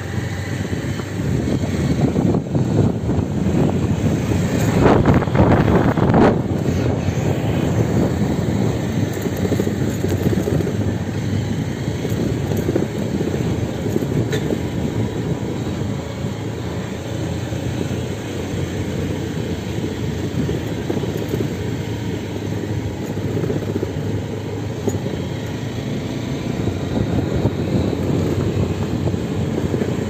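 A vehicle driving on a gravel dirt road: steady engine and tyre rumble over the loose surface, rougher and louder for a couple of seconds about five seconds in.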